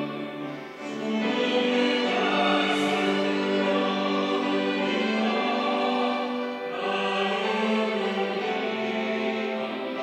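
Mixed church choir singing a sustained anthem, men's and women's voices together; the voices dip briefly and swell into a new phrase about a second in, and again near seven seconds.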